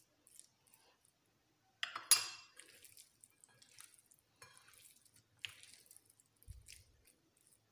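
A metal spoon clinking and scraping against a glass bowl, then hands working raw chicken pieces in flour with small scattered clicks and rustles. The loudest sound is a sharp clink with a brief ring about two seconds in, and there is a soft thump near the end.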